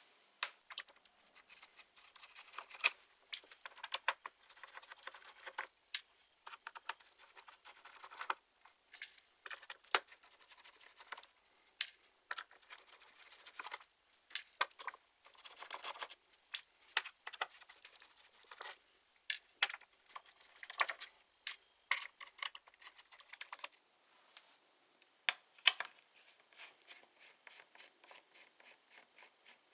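Irregular small clicks, taps and short scrapes of hands and a small screwdriver working on a laptop's plastic case and screws, as in opening the bottom panel to reach the hard drive.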